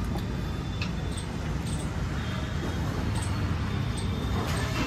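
Steady low rumble of road traffic, with a few faint clinks of steel utensils.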